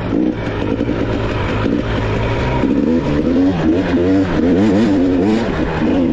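Dirt bike engine running under load, its pitch rising and falling quickly and repeatedly as the throttle is worked.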